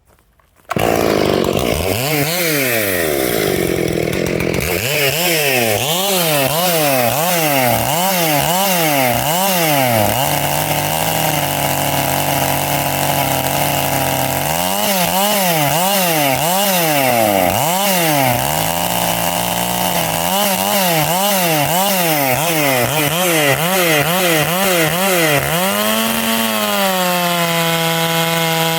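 Stihl 461 two-stroke chainsaw starting suddenly under a second in, then revved up and down in repeated throttle blips about once a second, with spells of steady running in between.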